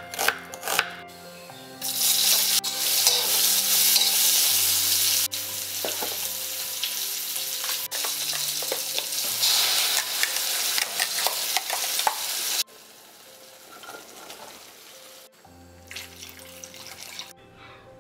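Sliced onions sizzling loudly in hot oil in a brass kadai while being stirred with a spoon; the sizzle starts about two seconds in and cuts off suddenly at about twelve seconds. Before it, a couple of knife cuts land on a wooden chopping board.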